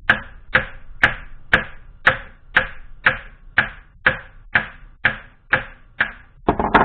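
A steady series of sharp strikes, like a hammer tapping a part of a drill press home, about two a second. They end in a quicker cluster of hits.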